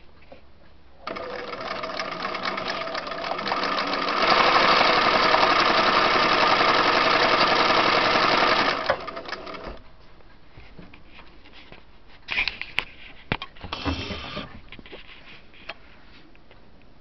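Bernina 930 sewing machine running and stitching through linen: it starts about a second in, speeds up and gets louder at about four seconds, runs fast and steady, then slows and stops near ten seconds. A few clicks and knocks follow after it stops.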